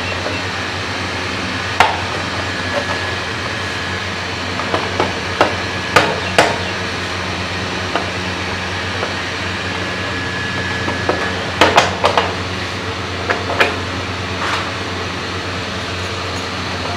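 Scattered sharp clicks and knocks as the Honda CG 125's side cover is fitted and pressed into place, a cluster of them about twelve seconds in, over a steady hum of background machinery.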